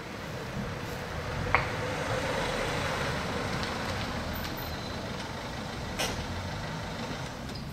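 A road vehicle passing: a broad rushing noise that swells and then eases off over several seconds, with a sharp click about one and a half seconds in and another about six seconds in.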